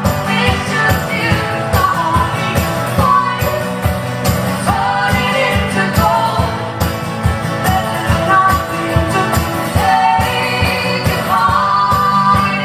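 Live band performance of a song: sung vocals over full accompaniment with a steady beat.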